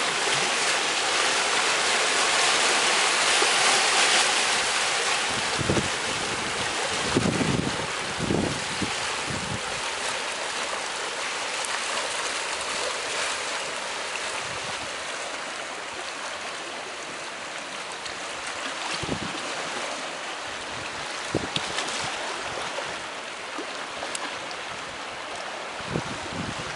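Surf washing over a rocky seashore, a steady hiss that is loudest in the first few seconds and then eases. Wind on the microphone adds a few low thumps now and then.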